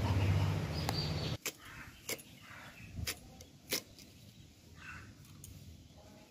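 A low steady hum cuts off suddenly about a second and a half in. After it come several sharp, separate snaps as banana-blossom florets are broken apart by hand.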